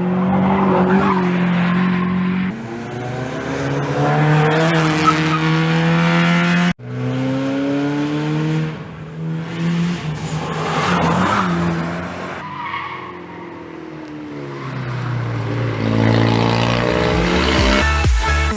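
Track-day cars driven hard on a tight circuit: engines revving up and dropping back through gear changes, with tyres squealing through the corners. Several clips are joined with abrupt cuts, one about seven seconds in.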